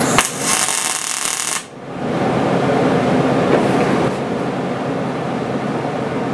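Arc welder striking an arc and laying a short tack weld on thin metal: a loud hiss of arc noise for about a second and a half that cuts off suddenly, followed by a steady background hum.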